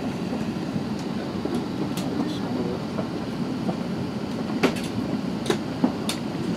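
Cabin noise of an Airbus A380 taxiing: a steady low rumble from the engines and the wheels rolling over the taxiway. Three sharp clicks come in the second half.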